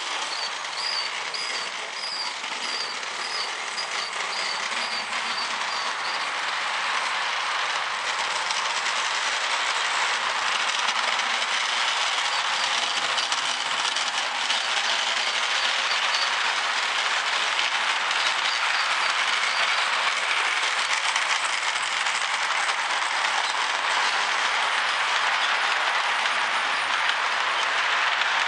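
Lionel O gauge model freight train running on its track: a steady whirring rattle of metal wheels on the rails and the locomotive's motor, growing somewhat louder as the train comes closer. Faint high ticks repeat over the first few seconds.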